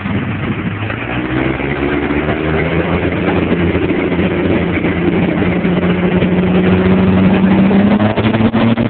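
Diesel pickup truck engines at a drag strip starting line, running up in revs with the pitch and loudness climbing steadily as they build up for the launch.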